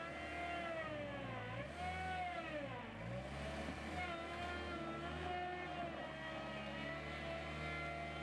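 Veper L 75 skid steer loader's engine running under varying load, its pitch dipping and recovering twice in the first few seconds and then holding steadier.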